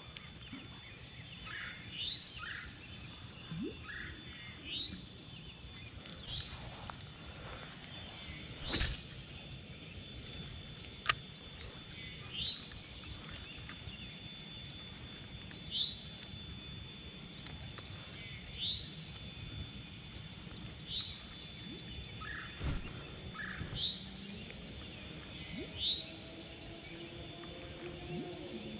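Birds calling with short, high, upward-sweeping chirps repeated every second or two, over a steady outdoor hiss. A few sharp clicks stand out now and then.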